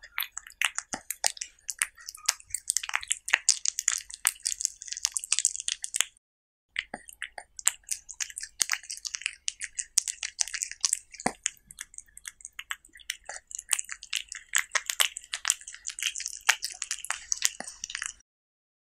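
Cat chewing bites of diced cucumber and tomato from a taco, close-miked: a dense run of quick mouth clicks and chewing noises. The sound breaks off briefly about six seconds in, then stops shortly before the end.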